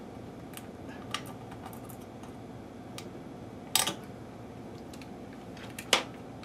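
Light clicks and clatters of an oscilloscope probe and its clip being handled on an amplifier's circuit board: a few scattered ticks, a sharper cluster just over halfway through and another click near the end. A faint steady hum underneath.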